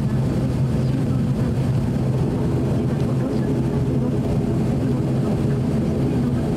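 Cabin noise of an ATR 42-600 turboprop beside the engine: the Pratt & Whitney PW127 engine and propeller running with a steady low drone, as the aircraft rolls out on the runway after landing.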